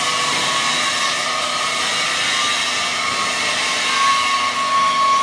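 Steady whirring hiss of running workshop machinery, with a faint high whine that grows stronger near the end.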